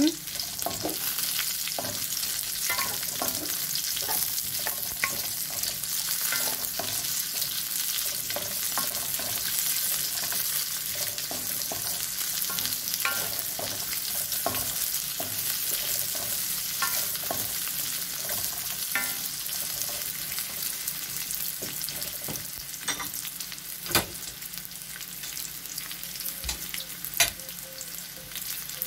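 Onion, potato, ginger and garlic sautéing in oil in a metal wok: a steady sizzle, with a wooden spoon stirring and tapping against the pan in short irregular clicks. Two sharper knocks come towards the end.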